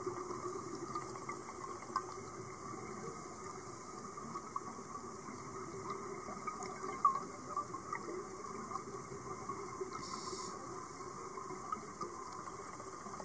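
Underwater ambience heard through a camera's waterproof housing: a steady muffled hiss with faint scattered ticks.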